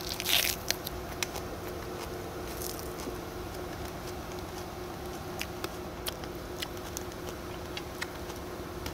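A crunchy bite into a big bundle of fresh minari (Korean water dropwort), then chewing, over scattered pops and crackles from pork belly sizzling on a grill pan. A steady low hum runs underneath.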